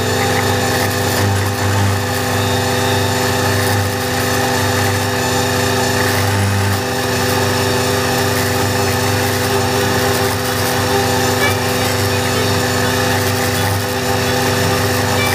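Valtra A93 tractor's diesel engine and its PTO-driven Agrimaster KP2600 flail mower running steadily while cutting long grass: a constant engine-and-rotor drone with a rushing noise from the flails.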